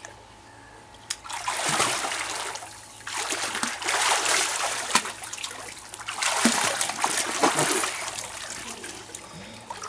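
A child swimming in a small water tank, his arms and legs splashing the water in three bouts of about two seconds each.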